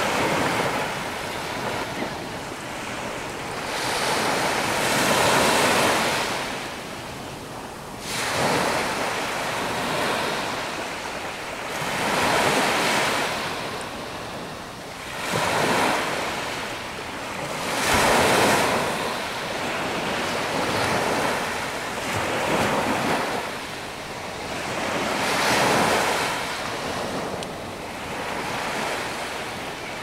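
Small waves breaking and washing up the sand, the surf noise swelling and fading every three to four seconds.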